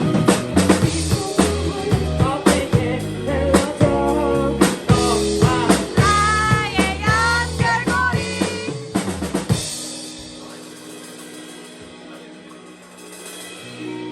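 Live band music: a drum kit with snare and bass drum plays under pitched melody lines. About two-thirds of the way through, the drums stop and a quieter held chord rings on.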